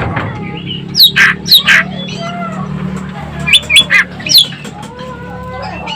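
Ekek keling in full song: loud, sharp calls with quick down-slurred whistles, clustered about a second in and again near four seconds, among softer chirps and a steady low hum.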